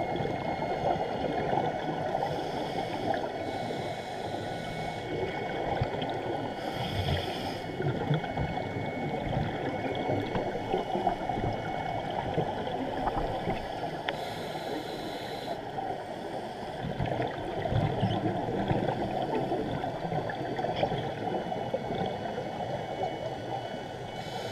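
Underwater noise picked up by a GoPro in its waterproof housing during a scuba dive: a steady crackling, gurgling rush, with a few brief louder swells of bubbling from the divers' breathing.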